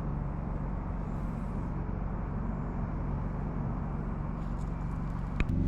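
Wood-Mizer LT40 sawmill engine idling steadily, with a single sharp click near the end.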